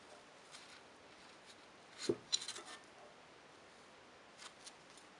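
Rusty, jammed vintage steel shears being worked open by hand: scattered small scraping clicks of the rusted blades and pivot. About two seconds in there is a soft knock followed by a quick run of sharper clicks.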